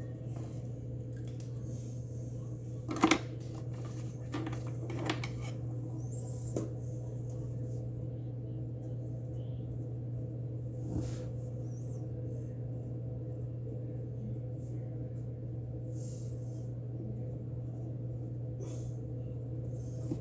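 A steady low hum with a few scattered light clicks and taps. The sharpest click comes about three seconds in, with another near the middle.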